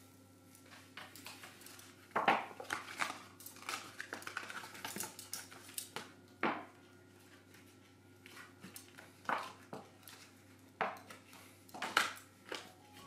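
Paper rustling and crinkling as it is handled and laid flat on a cutting board, with scattered sharp taps and clicks of a small metal tool and hands on the board, the loudest about two seconds in and near the end.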